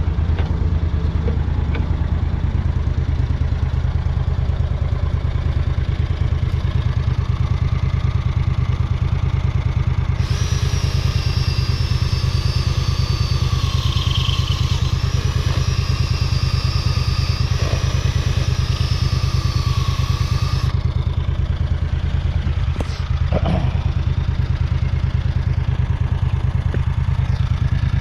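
Small engine running steadily at a low, even speed. For about ten seconds mid-way a higher wavering whine sits over it, and a couple of sharp knocks come near the end.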